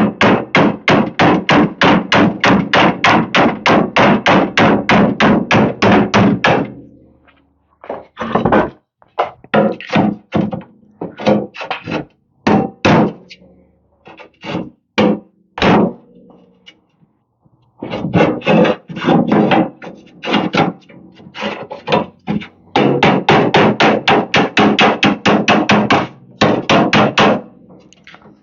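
Hammer blows straightening the bent hinge mount of a Bolens garden tractor's sheet-metal hood. A fast run of strikes at about four a second gives way to scattered single blows, then a second fast run.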